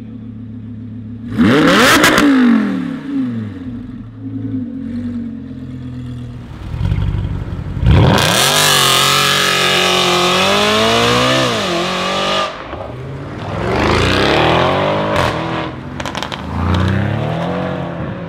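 A Lamborghini Huracán's V10 on an Akrapovič exhaust idles, then is revved sharply about two seconds in. Later an Audi RS5 accelerates hard away, its engine note rising and falling, with exhaust crackles near the end.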